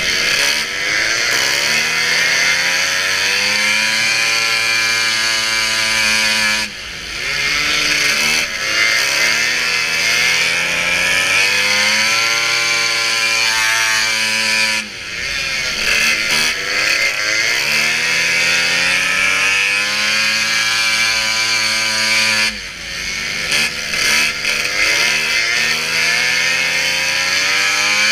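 Racing snowmobile engine at full throttle, its pitch climbing steadily and then dropping sharply three times, about every eight seconds, before winding up again.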